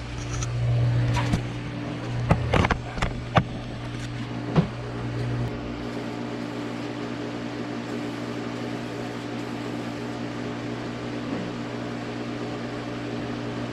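Steady mechanical hum, like a motor or fan running, with a few sharp knocks in the first five seconds; its deepest part drops away about five and a half seconds in.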